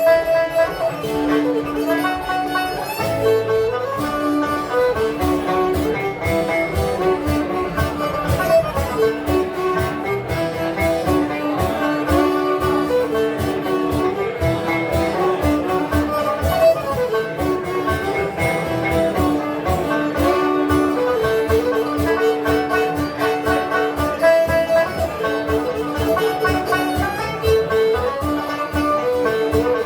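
Instrumental folk tune played on a strummed 12-string guitar and banjo, with a melody of held notes over a fast, even strum.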